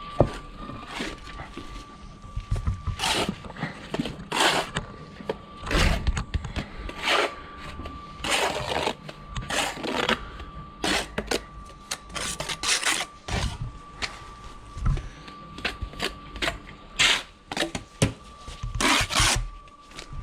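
Bricklaying trowel work on concrete blocks: an irregular run of short scrapes and knocks as mortar is spread and blocks are tapped down, over a faint steady high-pitched hum.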